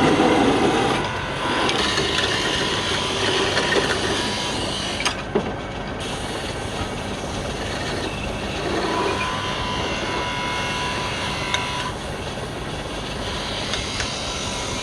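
Wood lathe running, with a turning tool cutting the spinning wood: a steady rough noise with a couple of sharp clicks about five seconds in.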